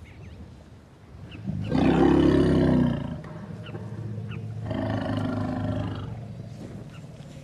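An elephant gives two deep calls. The first, about a second and a half long, is the louder; the second, softer and about as long, comes a couple of seconds later.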